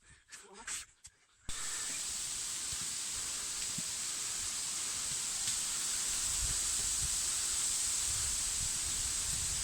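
Steady rushing noise of a waterfall, cutting in suddenly about a second and a half in, with low wind buffeting on the microphone in the second half.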